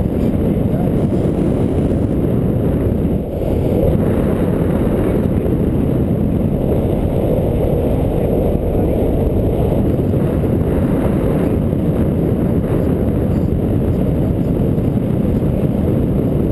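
Wind rushing steadily over the microphone of a camera worn by a paraglider pilot in flight, a continuous low noise.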